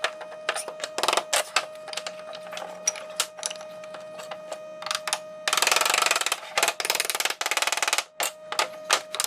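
Quick series of wooden knocks and taps as the tenoned box sides are pushed and tapped together in a dry fit, with a dense run of rapid knocks a little past the middle. A steady faint tone sits underneath.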